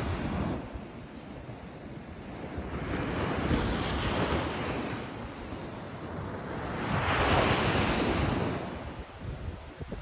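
Sea surf breaking and washing up the shore in three swells a few seconds apart, the last the loudest, with wind rumbling on the microphone.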